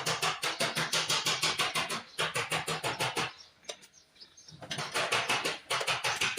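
Background music with a fast, even beat, pausing briefly about two seconds in and dropping away for about a second past the middle.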